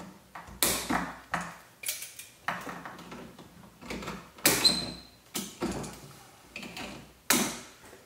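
Wire cutters snipping through old copper house wires at the back of an electrical receptacle: a series of sharp snaps, about seven over several seconds, one with a brief metallic ring.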